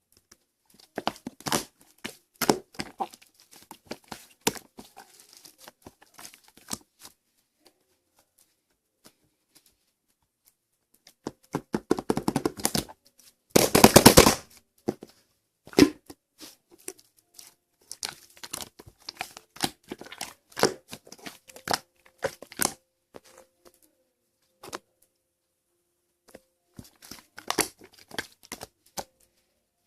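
Slime being squished and stretched by hand, making scattered wet clicks and pops. A dense run of rapid crackling pops about fourteen seconds in is the loudest moment.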